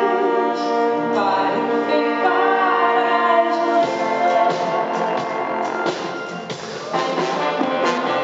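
Live band music with singing, a Brazilian pop song played in concert. A held, full chord rings for the first few seconds. Then the low end drops out and the music thins to a lighter, rhythmic passage before filling out again near the end.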